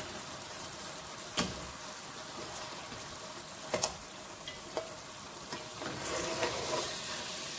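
Fish curry masala sizzling steadily in an aluminium pot while pieces of fish are lifted out with a slotted spatula. A few sharp clicks of the spatula knocking the pot are heard: one about one and a half seconds in, and two close together near four seconds.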